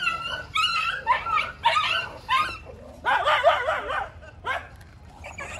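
Street dogs yelping and whining in a run of short high calls. About three seconds in comes a dense second of overlapping, wavering whines, and then the calls thin out.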